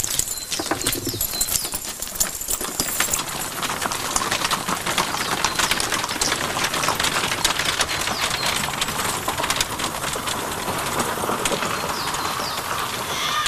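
Horses' hooves clattering on stone paving as mounted riders and a horse-drawn chariot move off, with a dense run of quick knocks.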